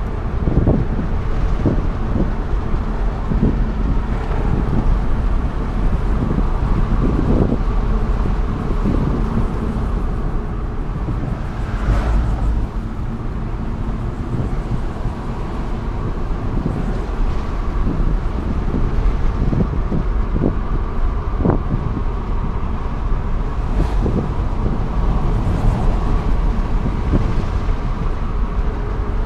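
Steady road and drivetrain noise inside the cabin of a moving 2009 Mercedes E550, with a low rumble and some wind.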